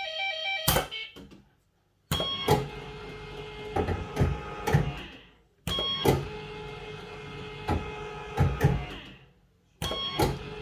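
Bellfruit Firecracker fruit machine from about 1982, its reels spun three times in a row. Each spin starts with a sudden clunk, then a steady electric whirring hum with a few clicks as the reels stop, and dies away to silence. There are short electronic bleeps at the very start.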